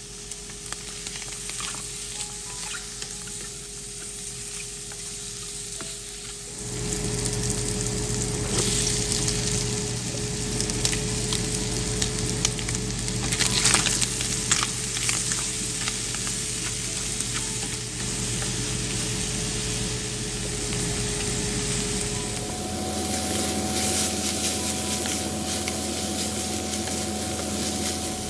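Sliced hot dogs sizzling in a nonstick skillet, then frying with chopped onion and green bell pepper while a wooden spoon stirs them. The sizzling gets louder about a quarter of the way in, with a flurry of spoon clicks and scrapes near the middle.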